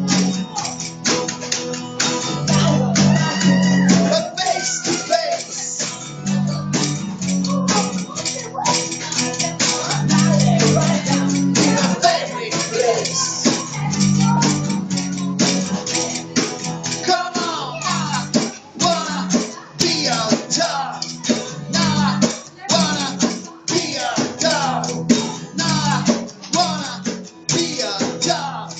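Electric bass guitar playing a repeating riff of low plucked notes over a steady percussive beat, in a live two-man jam.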